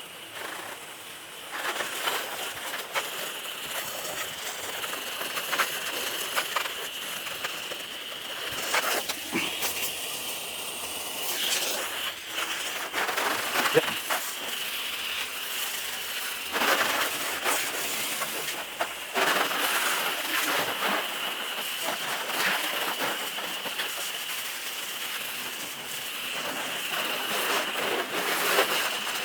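Garden hose spraying water onto a car to rinse it after a foam wash: a steady hiss of spray with brief splashes as the stream moves over the body panels.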